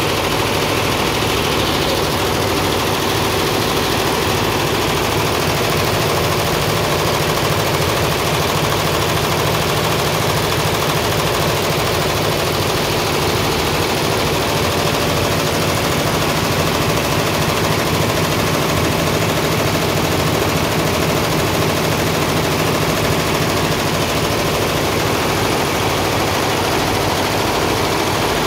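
A machine running steadily with a fast, even clatter, unchanging throughout.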